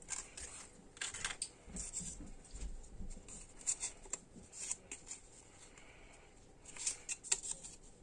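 Hands handling a DDR2 desktop RAM module: scattered light clicks and scratches as the stick is turned over and lined up, with a few dull bumps a couple of seconds in.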